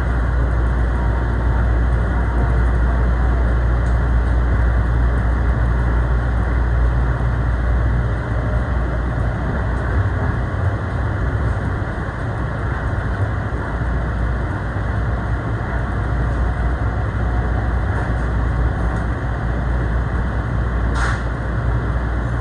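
Steady running noise of a moving commuter train heard from inside the car: a deep rumble of wheels on rails with an even hiss over it, and one brief sharp sound near the end.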